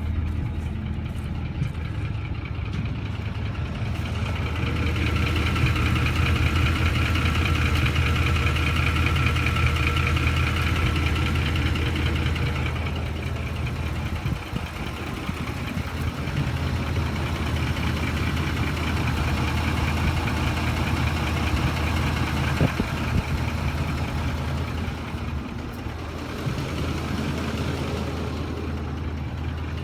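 Ford F-150's 5.4-litre Triton V8 idling steadily with a light knocking noise, which the owner suspects comes from the VCT cam phasers or the timing chain tensioners.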